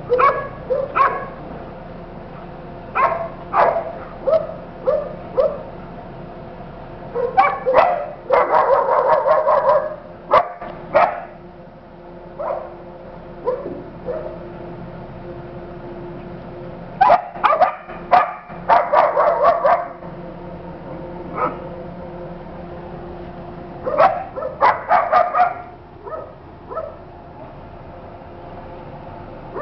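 A small dog barking and yipping in rough play with a tiger cub, in short bursts with pauses between them and two longer runs of rapid yaps.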